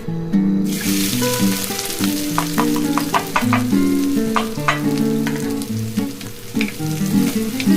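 Food sizzling as it fries in hot oil in a pan, starting about half a second in. A spoon clicks against the pan as it is stirred, a burst of clicks in the middle. Acoustic guitar background music plays underneath.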